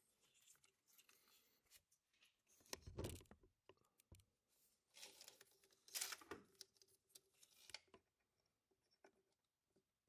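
Faint rustling and scraping of plastic electrical connectors and wiring being handled as a sensor plug is fitted into a harness connector, with short louder bursts about three and six seconds in.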